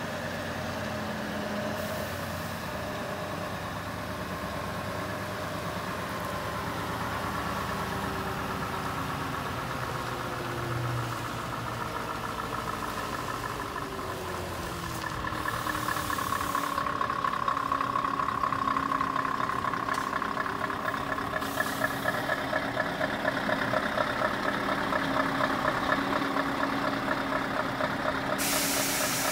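Scania R520 truck's V8 diesel engine running as the tractor unit moves slowly with its tipper trailer, its pitch easing down. About halfway through it grows louder and beats evenly as the truck idles close by.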